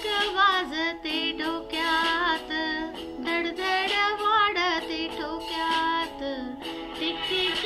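A woman singing, her held notes wavering with vibrato.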